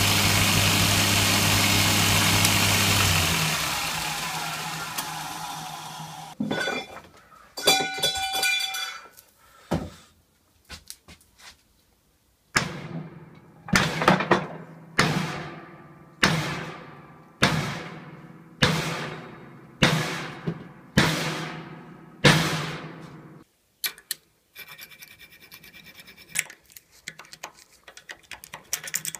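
A belt grinder running, switched off about three seconds in and winding down. After a few scattered knocks come nine heavy blows about a second apart, each ringing briefly, as a wooden handle is driven into the eye of an old steel hammer head held in a bench vise.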